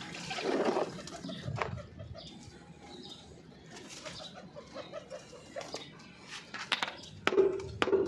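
Pigeons cooing and flapping around a man emptying a plastic water dish, with water splashing onto concrete early on and a few sharp knocks of the plastic dish being handled near the end.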